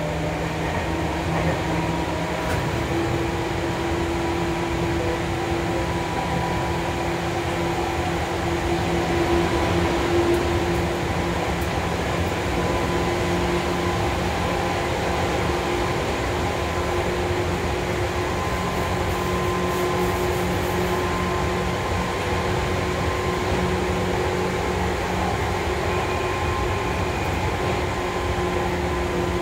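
Running sound inside a Seibu 101 series resistance-controlled commuter train car at speed: a steady rumble of wheels on rail with the hum of the traction motors and gears held at a near-constant pitch.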